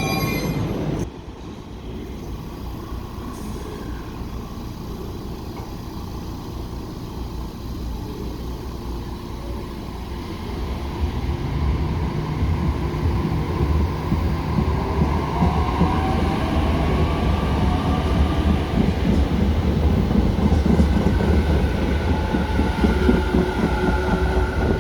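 A train running past: a low rumble that grows louder about eleven seconds in, with a faint rising whine in the middle. A station chime cuts off about a second in.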